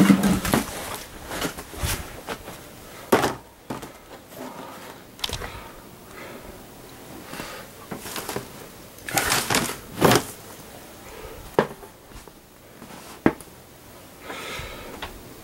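Someone rummaging through a cluttered closet: rustling of bags, blankets and clothes being shifted, with several sharp knocks and thumps as things are moved.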